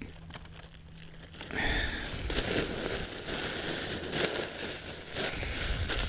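Crinkling and crumpling of a discarded balloon being handled and crushed up, starting about one and a half seconds in.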